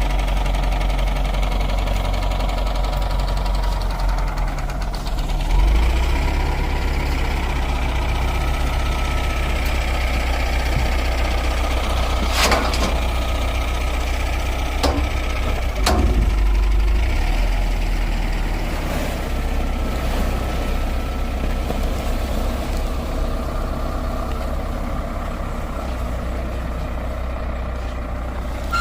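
Hand tractor engine running steadily with a deep, low drone, its note shifting a little about a quarter of the way in and again past the middle. A few sharp knocks or clanks come near the middle.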